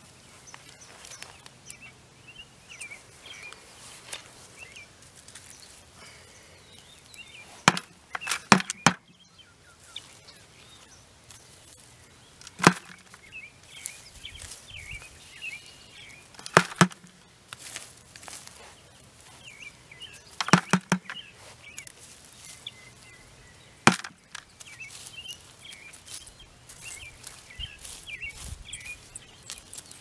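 A small hand weeding fork digging and scraping in a mulched flower bed, with sharp knocks every few seconds, some in quick pairs or threes. Birds chirp in the background.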